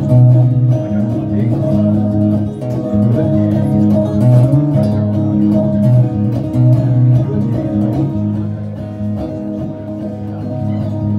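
Acoustic guitar played live as an instrumental break between verses, picked and strummed in a steady rhythm with no singing.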